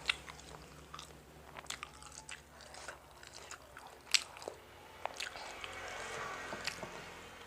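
Close-up mouth sounds of someone chewing a mouthful of spicy siomay: irregular wet clicks and smacks, with a sharper click about four seconds in.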